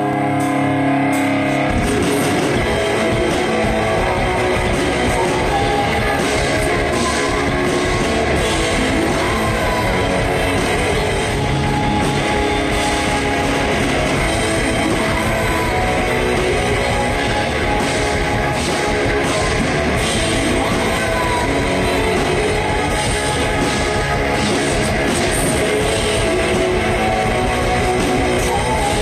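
Live heavy rock band playing loudly, with electric guitar and drum kit. The full band comes in right at the start after a quieter passage, then keeps a steady, dense wall of sound.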